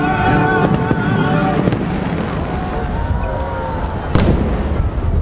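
Fireworks going off: a low, continuous rumble of bursts with one sharp crack about four seconds in. Show music with held tones plays over it and stops about two seconds in.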